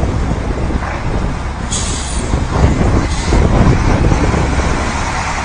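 Heavy diesel dump truck engines running, getting louder about two and a half seconds in. A short sharp air hiss comes about two seconds in, and a fainter one about a second later.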